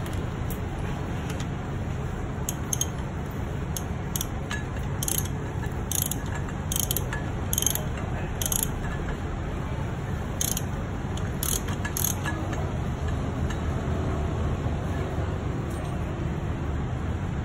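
A dozen or so sharp metallic clicks and clinks at uneven intervals, mostly between about 2 and 12 seconds in, from a wrench turning the crankshaft of a bare Aprilia RSV4 V4 engine as its cam timing is set. A steady low hum lies beneath.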